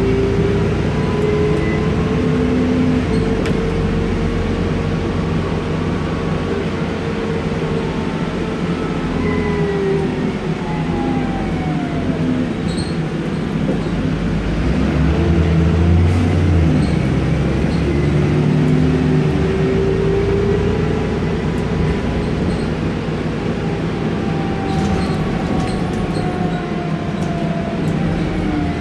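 Alexander Dennis Enviro400 double-decker bus heard from the upper deck while driving: a steady low engine drone with a whine that rises and falls in pitch several times as the bus speeds up and slows.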